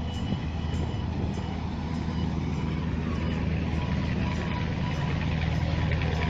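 A steady low engine drone, with a hiss of outdoor noise above it.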